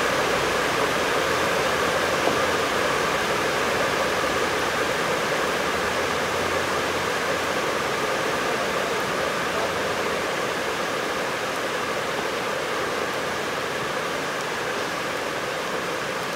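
Steady rushing noise with a faint hum in it, slowly getting a little quieter, with no bat or ball strikes.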